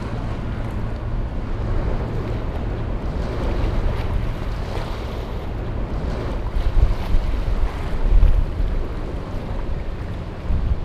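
Wind buffeting the microphone: a rushing, rumbling noise, with stronger gusts about seven and eight seconds in.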